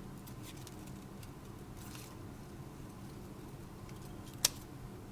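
Scissors cutting paper: a few faint snips and paper rustles, then one sharp, louder click of the blades near the end, over a low steady room hum.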